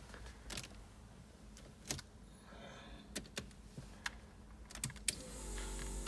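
Scattered light clicks and key rattles from handling the car's ignition key in the cabin, with a low hum coming up near the end as the ignition is switched on.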